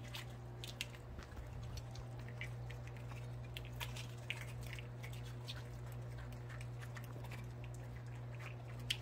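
Jindo dogs chewing and licking raw eggs and cracked eggshells on the ground: faint, irregular little clicks and crackles, over a steady low hum.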